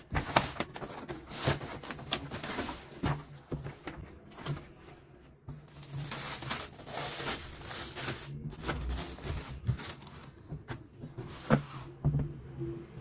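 Paper rustling and crinkling as a shoebox is unpacked from a paper shopping bag and its tissue paper is pulled back, with a few sharper knocks of the cardboard box.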